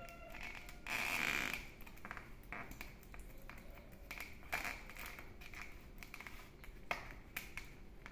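Soft crackles, taps and rustles of leaf wrapping and split-bamboo ties being handled as a bánh chưng is tied, with a brief louder rustle about a second in.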